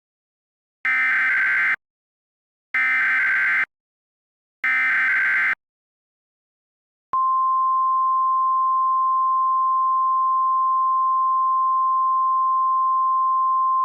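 Emergency Alert System header: three short bursts of buzzing digital data tones, about a second each and evenly spaced, then a long steady single-pitch attention tone starting about seven seconds in.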